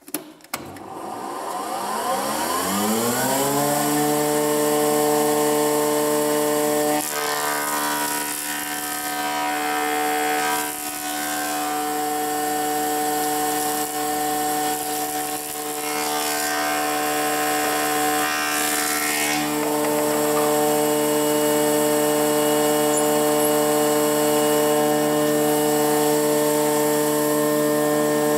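Woodworking surface planer switched on with a click, its motor and cutter block winding up in pitch over the first few seconds, then running with a steady hum. From about seven to twenty seconds in, rough-sawn tulipwood is fed over the cutters in several passes, adding a rougher cutting noise, as a flat face and square edge are planed.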